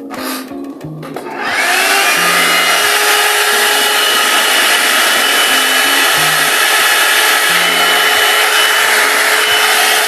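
A hand-held hair dryer is switched on about a second and a half in: its motor whine rises quickly and then runs steady under a loud rush of air.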